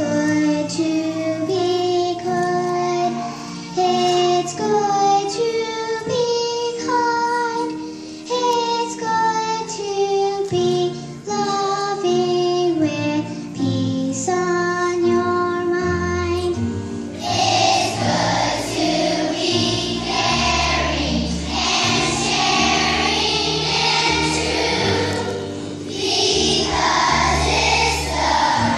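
A girl sings solo into a microphone over backing music; a little past halfway, a choir of young children joins in and the accompaniment fills out with a deeper bass.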